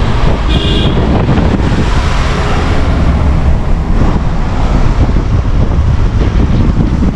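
Strong wind buffeting the microphone of a moving car, over a steady low engine and road rumble. A brief high tone sounds about half a second in.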